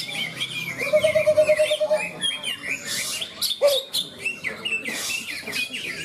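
Several caged green leafbirds (cucak ijo) singing at once in fast, varied warbling chirps, with a held lower whistle about a second in.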